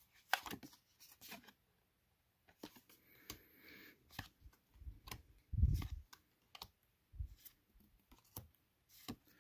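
Pokémon trading cards being flipped through by hand: a run of short, sharp clicks and snaps as each card is slid off the front of the stack onto the back, with a louder dull knock a little past halfway.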